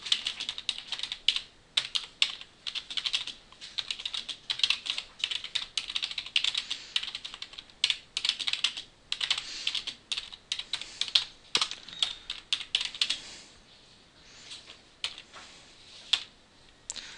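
Computer keyboard being typed on in quick runs of keystrokes, thinning out to a few scattered key presses in the last few seconds.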